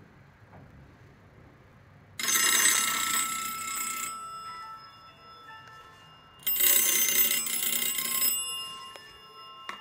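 Kirk F61 rotary telephone, converted to 4G, ringing for an incoming call: two rings of about two seconds each, the first about two seconds in and the second about six and a half seconds in, each fading out after it stops.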